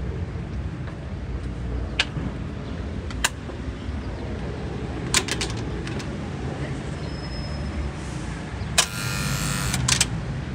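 Electric gate lock buzzing for about a second as it releases, ending in a metallic clack, with sharp clicks a few seconds before it. A steady low traffic rumble runs underneath.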